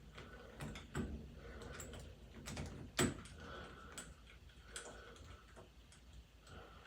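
Irregular small metal clicks and knocks from door-knob hardware being handled and unscrewed, with one sharper knock about three seconds in.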